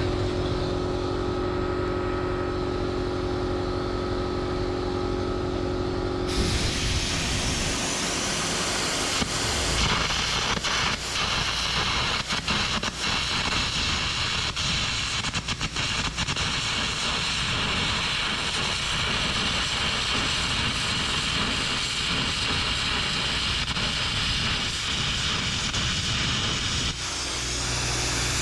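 An engine runs with a steady hum. About six seconds in, air carbon arc gouging starts on a steel axle housing: a loud steady hiss of air and arc with crackling pops, cutting away an old spring perch. It stops near the end and the engine hum is heard again.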